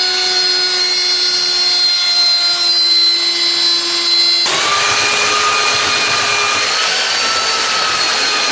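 Handheld wood router motor running with a steady high whine. About halfway through, the sound switches abruptly to a belt sander running on a wooden sign blank, a dense rushing noise.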